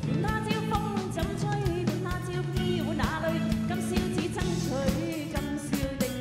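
Live pop band playing with a steady drum-kit beat, electric guitar and keyboards, and a woman singing the melody into a microphone.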